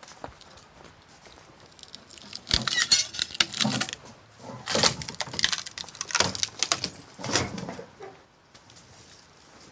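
Handsaw cutting dead tree wood: several noisy strokes about a second apart, starting a couple of seconds in and stopping around eight seconds.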